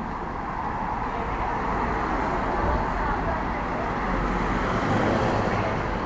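Busy city-street traffic: cars, a ute and a bus running along the road beside the footpath in a steady wash of engine and tyre noise, swelling as vehicles pass close.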